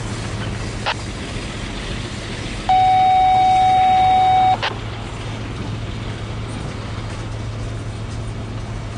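Empty coal hopper cars rolling past on the rails, a steady noise of wheels and cars. About three seconds in, a railroad radio scanner sounds one steady beep lasting about two seconds, which is the loudest sound, and clicks off at its end.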